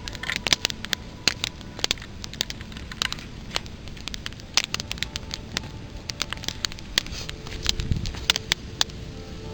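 Wood campfire crackling, with irregular sharp pops and snaps, and a dull low thump about eight seconds in.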